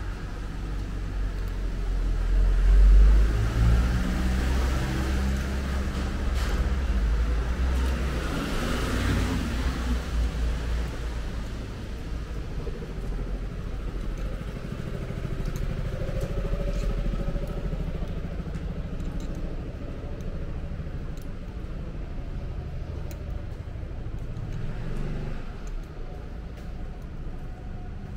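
Road traffic beside the walkway: a motor vehicle's engine rumbling, loudest about three seconds in. Then tyre hiss swells and fades as a car passes about nine seconds in, and the low rumble dies away over the second half.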